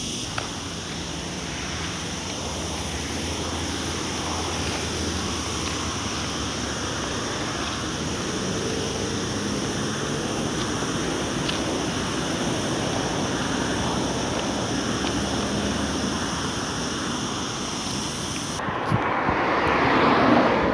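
Street traffic going by on a city road, a steady rush that swells gently and eases, with wind buffeting the phone's microphone. Near the end it turns into a louder, closer rush with a few knocks.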